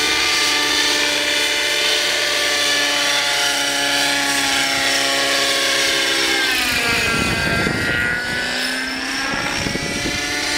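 Nitro glow-engine RC helicopter in flight: a steady high engine whine made of many stacked tones, with rotor noise. About seven seconds in, as it passes low, the pitch sags and then climbs back, and there is a gusty low rumble.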